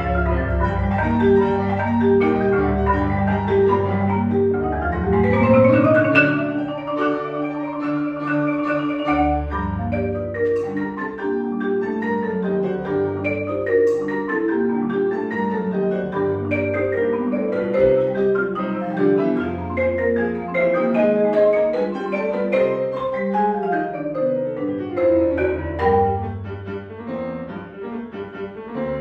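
Concert marimba played with mallets in fast, dense passages, with a quick upward run about five seconds in, over piano accompaniment standing in for the orchestra. Near the end the marimba eases off and the piano carries on.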